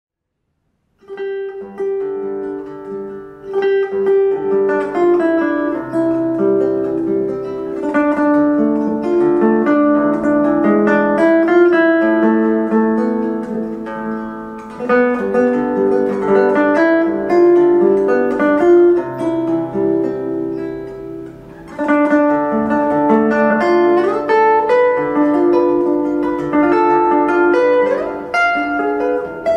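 Acoustic guitar music, plucked and strummed notes, starting about a second in after a moment of silence.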